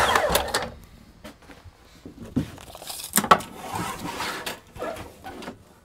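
Lengths of wood stock being handled on the miter saw table: a run of clacks and scrapes, with the sharpest knock about three seconds in.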